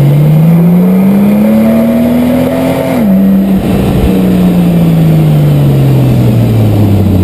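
Porsche 997 Gen II 911 Turbo's twin-turbo flat-six heard at the exhaust tailpipe, loud, as the car accelerates with rising revs. About three seconds in the pitch drops sharply at a quick PDK gear change, then the revs fall slowly as the car eases off.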